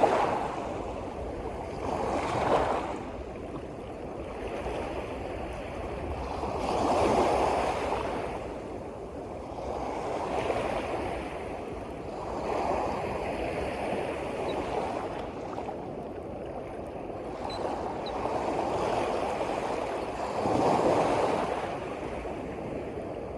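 Sea waves washing in, swelling and falling every few seconds.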